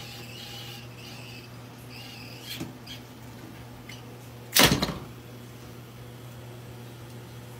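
A single loud bang against a door about four and a half seconds in, with a lighter knock a couple of seconds before it, over a steady low hum.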